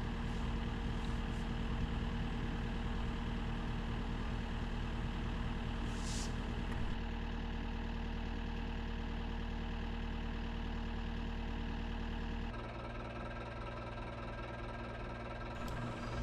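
Cat 289D3 skid steer's diesel engine idling steadily, its tone shifting slightly about seven seconds in and dropping a little quieter near the end.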